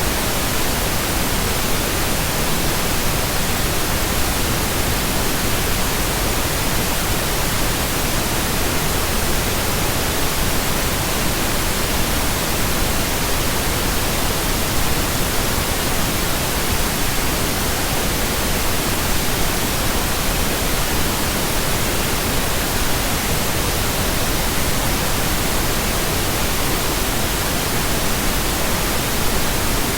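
Steady, electronically generated pink noise: an even, unchanging hiss that fills the whole range from deep to high, with nothing else in it.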